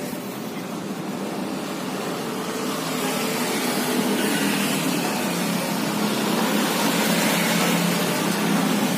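Road traffic: motorcycles and a light truck passing on a narrow street, a steady engine-and-tyre noise that grows louder about three seconds in.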